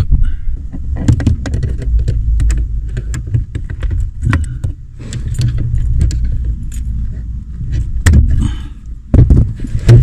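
Irregular metallic clicking and rattling as a wire retaining pin is worked out of the brake pedal arm with pliers, over low bumping from hands moving under the dashboard.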